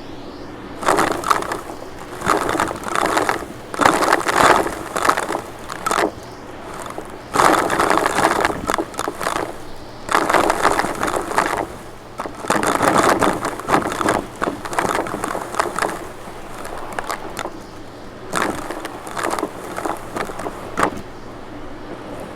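Vacuum cleaner running, with a steady hum and repeated rough, rushing swells about a second long as the cleaner head is worked back and forth over the floor.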